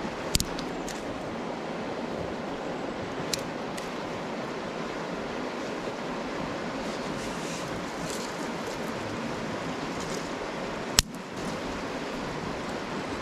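Steady rushing of river water. A few sharp clicks of dry sticks being handled, with one louder crack near the end.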